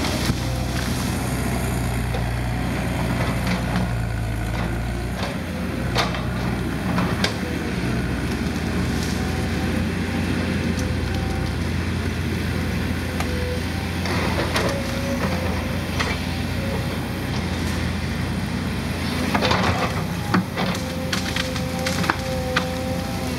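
Volvo 210 tracked excavator's diesel engine running under steady load while it piles brush, with branches and small trees cracking and snapping now and then, several times in a cluster near the end.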